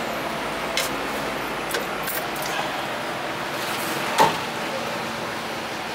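Meat cleaver striking a wooden chopping block a few times, sharp knocks and light metallic clinks, the loudest chop about four seconds in, over steady street traffic noise.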